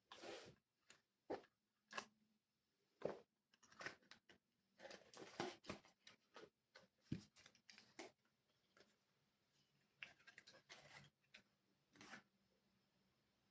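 A cloth rubbing and wiping small office items in short, irregular strokes, with a few light taps and clicks as the items are handled and set down.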